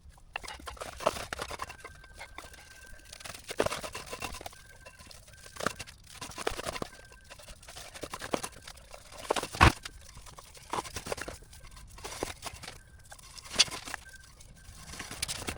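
Fast-forwarded handling noise of exhaust header wrap being wound tightly around a motorcycle's header pipe: irregular rustles, scrapes and short clicks, with one sharp click about ten seconds in.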